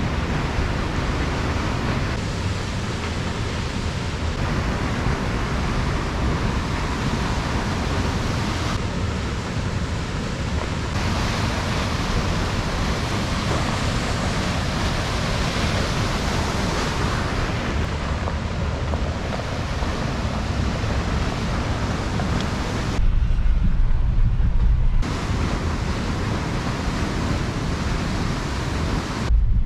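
Steady rushing of fast-flowing river water, with gusts of wind buffeting the microphone about 23 seconds in and again right at the end.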